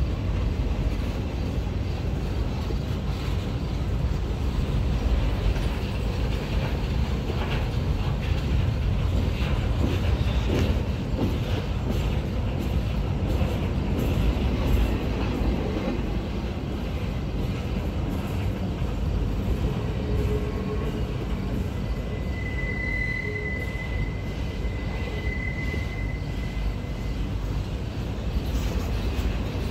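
Freight train of empty cars rolling by, a steady rumble of wheels on rail with scattered clicks and rattles. A thin, steady wheel squeal rises over it for several seconds past the two-thirds mark.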